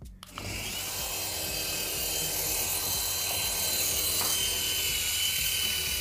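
Toy infrared RC helicopter's small electric motors and stacked twin rotors starting up a fraction of a second in, then running with a steady high whine and whirring hiss.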